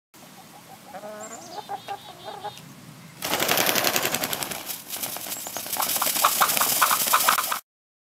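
A hen clucking in short repeated calls, then a sudden loud stretch of rapid flapping and rustling as she flounders in deep snow, with more clucks through it. The sound cuts off abruptly near the end.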